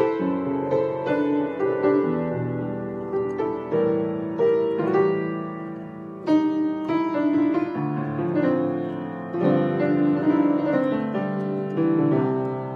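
Piano played with both hands: a chord progression in the key of C, full chords changing every second or so with a few quick fills between them.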